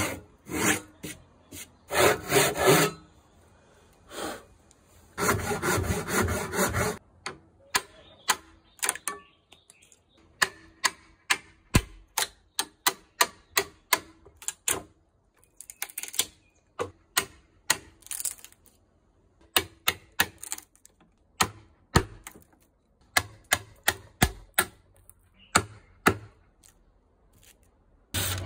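Handsaw cutting kerfs across a wooden board in two spells of rapid strokes. This is followed by a long run of sharp knocks and cracks, about two a second, as a chisel chops and splits out the waste wood between the kerfs.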